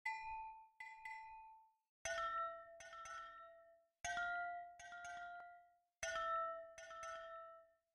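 Intro music: bell-like mallet-struck notes, one note followed by two quick ones, the group repeating every two seconds, each note ringing on for about a second.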